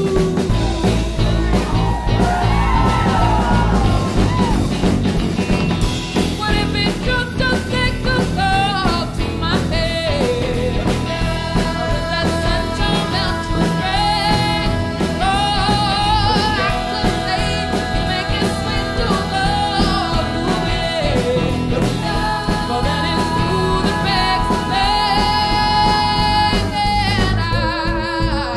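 Live band music from electric guitar, upright bass and drums. It opens with a few seconds of instrumental playing, then a woman's voice comes in singing lead with a backing vocal, in long held notes with vibrato.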